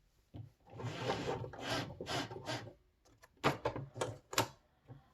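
A sheet of paper rubbing and sliding as it is fed into a typewriter, followed by several sharp clicks about three and a half seconds in.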